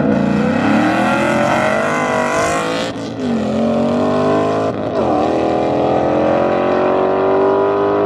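Two cars launching side by side and accelerating hard in a street drag race, engines rising in pitch through the gears, with upshifts about three and five seconds in.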